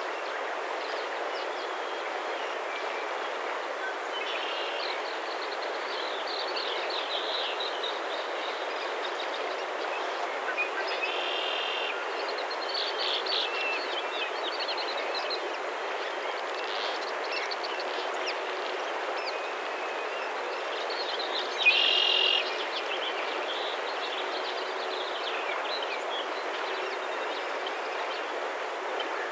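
Outdoor ambience: a steady rushing background noise with birds chirping and calling throughout, and a louder, brief bright call about twenty-two seconds in.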